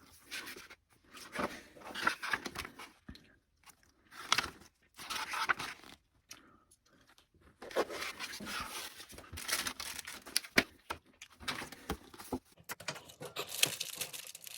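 Crunching, rustling and scraping of hands handling a computer case's loose parts and wiring, in short irregular bursts with pauses.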